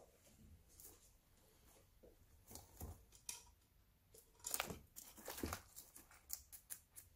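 Guinea pig pulling a leaf of greens down and tearing and crunching it: faint crisp crackles, loudest in a cluster around the middle.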